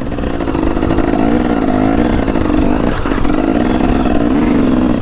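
KTM 300 EXC two-stroke dirt bike engine running under the rider, its note rising and falling with the throttle, with a brief dip about three seconds in.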